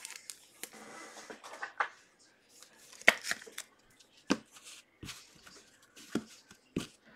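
Sports trading cards being handled on a tabletop: a soft rustling and sliding, then several sharp taps and clicks about a second apart as cards are set down and picked up.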